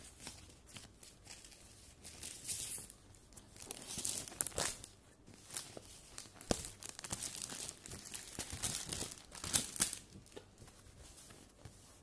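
Paper sheets and a printed snakes-and-ladders game mat rustling and crinkling as they are handled and spread out by hand, in irregular scrapes and crackles, with the sharpest crackle near the end.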